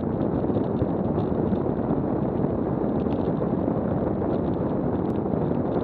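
Steady rush of wind and tyre noise from a WAW velomobile rolling along paved trail at about 26 mph, with wind buffeting the shell-mounted microphone.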